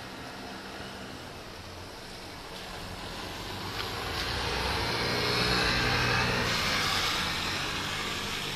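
A road vehicle driving past on a rain-wet road. Its sound swells to a peak about six seconds in, gliding in pitch as it passes, then fades, over the steady hiss of rain.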